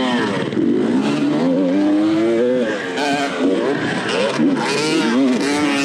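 Dirt bike engine revving hard, its pitch rising and falling every second or so as the throttle is worked and gears change.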